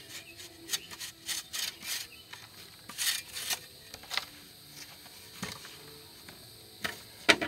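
Steel shovel scraping and scooping loose red clay soil and tossing it, in a string of short, uneven scrapes with a sharper one near the end, as dirt that was dug away too deep is moved back under a block pier.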